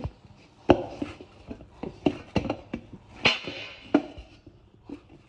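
Atta flour dough being kneaded by hand: irregular soft thuds and slaps as it is pressed and turned, with a brief rustling scrape about three seconds in.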